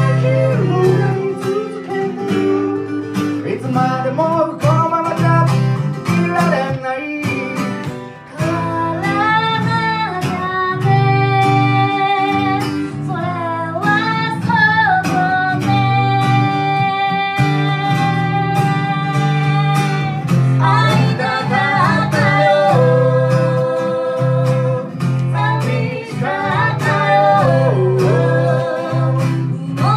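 A band playing a song live: a singer's voice over guitar and a steady low accompaniment, with several long held notes in the middle.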